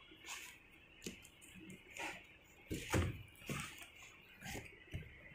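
Cardboard packaging being handled: irregular rustles, scrapes and light knocks, the loudest about three seconds in, as a boxed electric kettle is pulled out of its corrugated cardboard wrapping.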